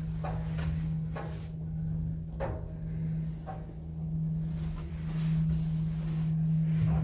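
Inside a KONE passenger lift car: a steady low hum, with a few faint knocks and a soft door-like clunk.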